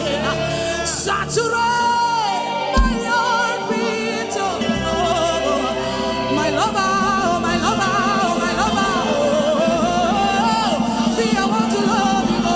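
Gospel worship music: a voice singing long, wavering notes with vibrato over steady held instrumental chords.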